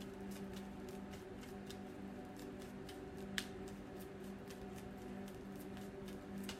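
A deck of oracle cards shuffled by hand: a run of quick, light card clicks and flicks, with one sharper snap a little past halfway, over a steady low drone.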